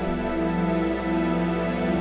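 Soft, slow background music with long held notes.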